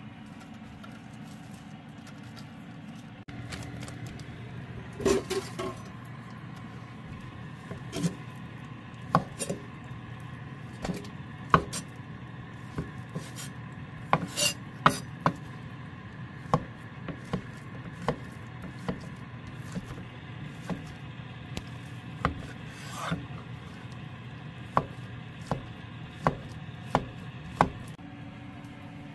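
Chef's knife chopping ham on a wooden cutting board: irregular sharp knocks of the blade hitting the board, about one a second, over a steady low hum.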